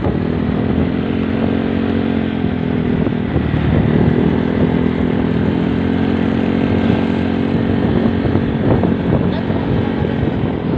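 Vehicle engine running at a steady cruising speed with wind and road noise, its pitch shifting briefly about three seconds in.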